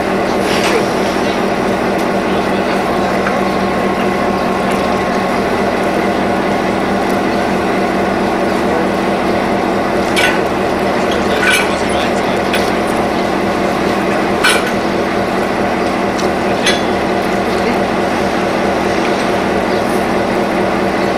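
Diesel locomotive engine idling steadily, with a few sharp metallic clanks from the coupler and brake hoses being handled at the coupled end, most of them between about ten and seventeen seconds in.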